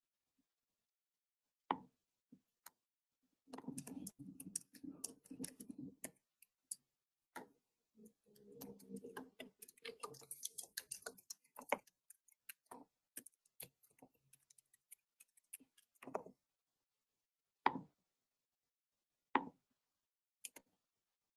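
Faint scattered clicks and knocks on an open microphone, with two stretches of denser muffled rustling and clicking a few seconds in and again near the middle.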